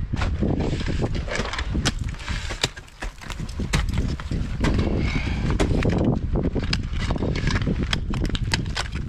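Steel picks of Petzl ice tools striking and biting into waterfall ice during a lead climb: sharp, irregular knocks, several a second, over a steady low rumble.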